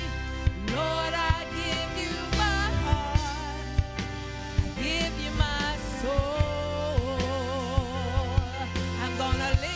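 Gospel worship music: keyboard and drum kit playing with a voice singing long held notes with vibrato, and regular drum hits throughout.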